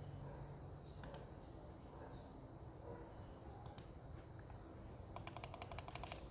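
Magic Refiner MK14 mechanical keyboard with BSUN blue clicky switches being typed on. There is one keystroke about a second in and another a few seconds later, then a rapid run of about a dozen clicky keypresses near the end.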